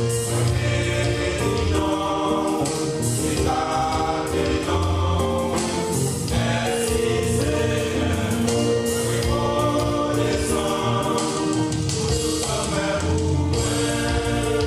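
Male choir singing a gospel song in several-part harmony, the voices sustained and continuous.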